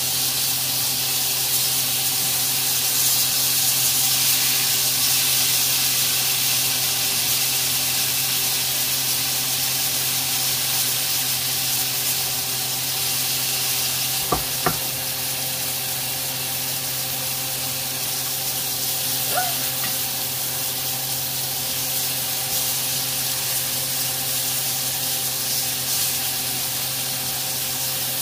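New York strip steaks sizzling in a hot ridged grill pan: a steady hiss over a low hum, with two light knocks about halfway through.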